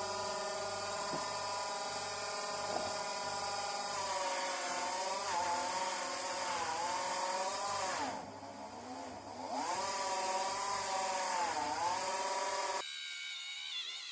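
Electric polishing wheel motor running with a steady whine, its pitch sagging and recovering several times as the hammer is pressed against the wheel loaded with green polishing compound. It cuts off suddenly near the end.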